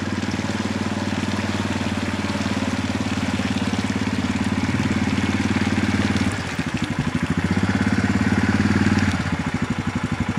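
ATV engine running steadily under way, then dropping to a pulsing idle about six seconds in, picking up briefly, and settling back to idle near the end as the four-wheeler comes to a stop.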